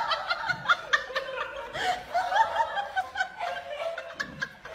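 A person laughing in quick, high-pitched giggles, one short burst after another.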